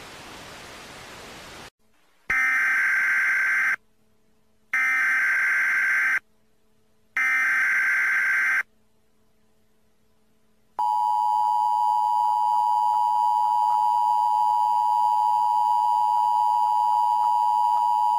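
Emergency Alert System tones: a brief hiss of static, then three buzzy data bursts of the SAME header, about a second and a half each, a pause, and then the steady two-tone attention signal lasting about eight seconds.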